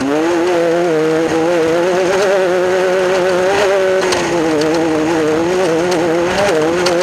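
Class 10 off-road race car's engine running hard at high revs, its pitch wavering up and down as the throttle changes, with scattered short knocks.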